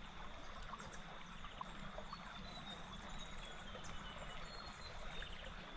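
Quiet riverside ambience: a gently flowing river, with a faint, thin, high-pitched chirping through the middle of the stretch.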